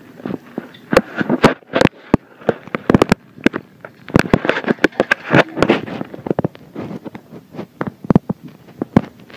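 A rapid, irregular run of sharp clicks and knocks with a crackling texture, thickest about a second in and again around the middle, thinning to scattered single knocks near the end.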